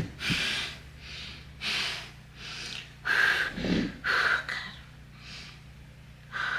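A woman breathing hard through a string of about eight short, quick gasps and puffs, in pain from waxing her armpits. A sharp snap right at the start is the loudest moment.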